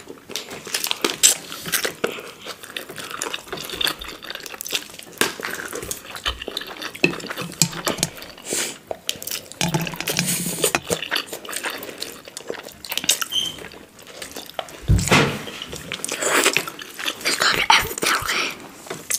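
Close-miked eating sounds: two people slurping and chewing instant noodles, with irregular clicks of a fork and chopsticks against plates.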